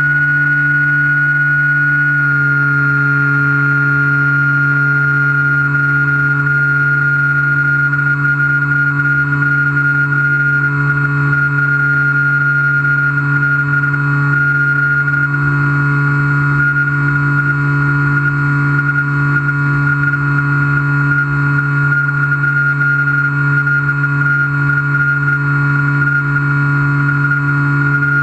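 Skywalker model plane's electric pusher motor and propeller, heard from the onboard camera, running at a steady cruise with a constant hum and whine. The pitch drops slightly about two seconds in, then holds steady.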